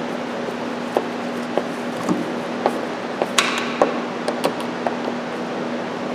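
Light clicks and knocks of parts and hand tools being handled during reassembly, about eight scattered taps, over a steady background hum.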